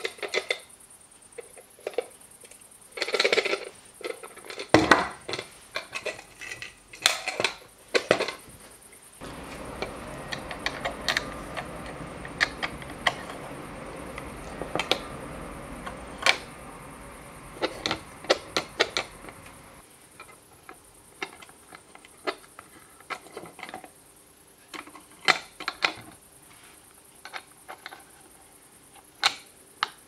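Metal clicks and light clatter from a small box latch made of a 50-cent and a 20-cent euro coin being swung open and snapped shut, with knocks of the wooden box against a wooden table. A steady hiss sits under the clicks for about ten seconds in the middle.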